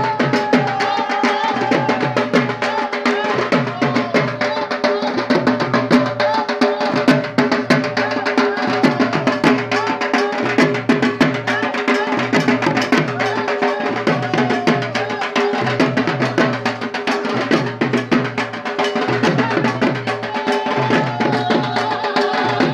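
Dhak, the large Bengali barrel drum, beaten fast with sticks in a dense, driving rhythm. A deep stroke with a falling pitch comes about once a second, over steady ringing tones.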